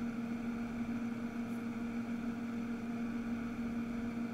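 Steady electrical hum with an even hiss underneath: the background noise of the studio microphone and equipment.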